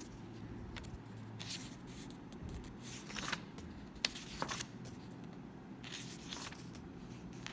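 Pages of a book being turned and handled: a few short papery rustles and swishes, with a sharp flick about four seconds in.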